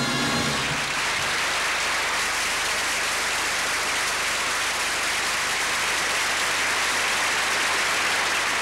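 The last held note of the song's music ends about a second in, and steady studio audience applause follows.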